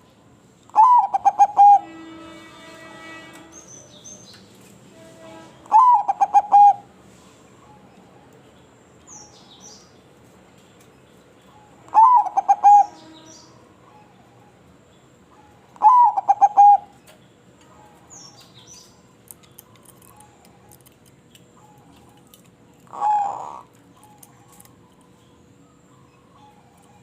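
Zebra dove cooing: four loud phrases of about a second each, spaced several seconds apart, then a softer fifth near the end. Faint high chirps sound in the gaps.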